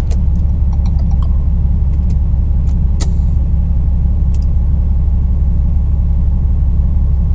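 Steady low diesel rumble of a semi-truck heard inside the cab, with a few light clicks, the sharpest about three seconds in.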